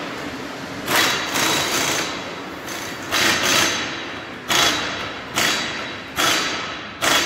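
A series of hammer blows, about nine, roughly one a second, each sharp strike echoing briefly in a large workshop hall.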